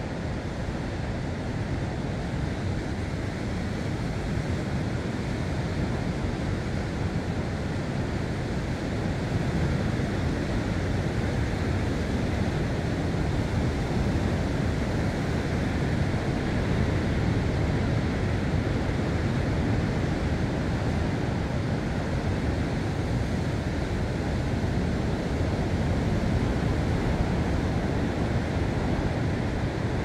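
Sea surf washing against a rocky shore: a steady low rush of waves that grows a little louder about ten seconds in.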